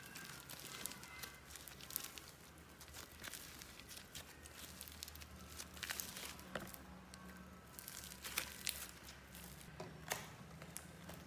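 Sticky glossy slime being squeezed, stretched and kneaded by hand, giving irregular wet clicks and crackles as it pulls apart and folds.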